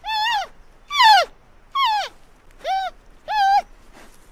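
Giant panda calling: a run of five short, high-pitched calls about one a second, each holding its pitch and then dropping away at the end.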